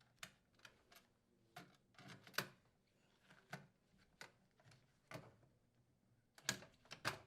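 Faint, irregular small clicks and taps, about a dozen, from a metal conduit connector being handled and fitted into a range hood's terminal box.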